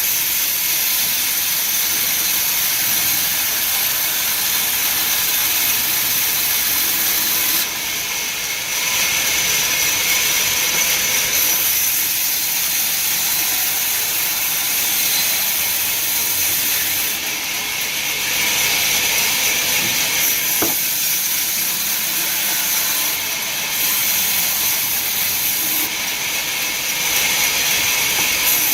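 Loud, steady hissing machine noise from heavy wood-cutting machinery, dropping briefly in level a few times.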